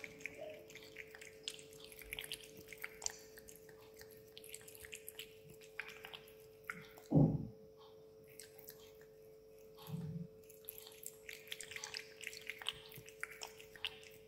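Cat lapping water from a stainless steel bowl: a run of small wet licks and drips, over a steady faint hum. A single louder low thump comes about seven seconds in.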